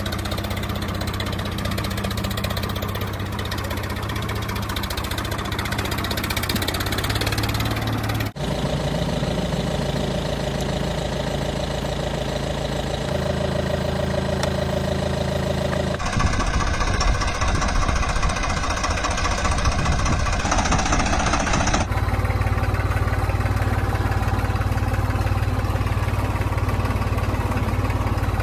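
Dubbed engine sound effects of tractors and a car, running steadily near idle with a knocking beat. The sound switches abruptly to a different engine clip about 8, 16 and 22 seconds in.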